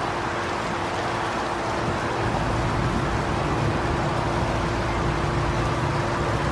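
Strong wind rushing over the microphone, with low buffeting rumble that grows heavier about two seconds in, and a faint steady hum underneath.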